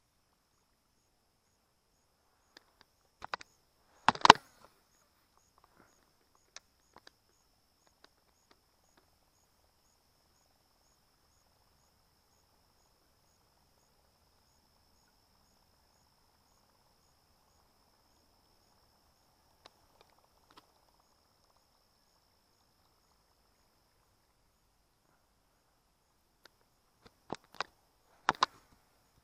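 A few sharp knocks, the loudest about four seconds in, with another cluster near the end. Behind them a faint, steady, high insect trill that stops about twenty-four seconds in.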